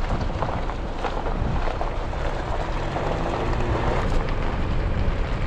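Wind blowing on the microphone over the steady running noise of a diesel camper vehicle driving along a gravel road.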